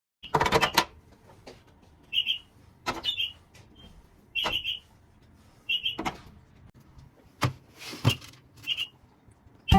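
A series of sharp clicks and knocks, several with short high squeaks, from household objects being handled.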